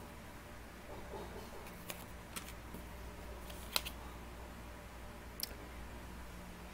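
Oracle cards being handled and laid down on a wooden table: four light clicks and taps, the sharpest a little past the middle, over a low steady hum.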